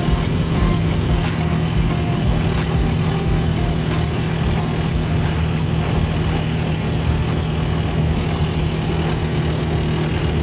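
Motorized tricycle's engine running steadily at road speed, with road and wind noise, heard from inside the passenger sidecar.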